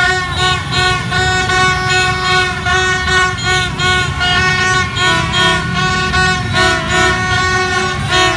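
A dense din of horns tooting in short, overlapping blasts: plastic vuvuzela-style fan trumpets and motorbike horns sounding over and over. Beneath them runs a low rumble of the crowd and many motorbikes.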